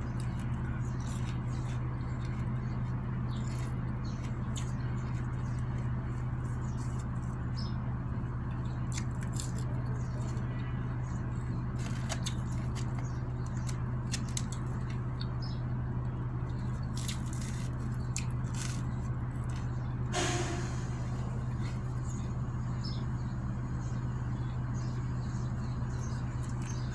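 Close-up eating sounds: chewing and small wet mouth clicks scattered throughout, with one sharper click about three-quarters of the way through, over a steady low hum.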